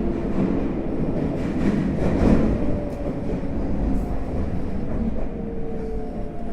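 Tokyo Metro 05 series train with Mitsubishi IGBT inverter drive, heard from inside the passenger car: a steady rolling rumble with faint motor tones slowly falling in pitch as the train slows, and a louder stretch about two seconds in.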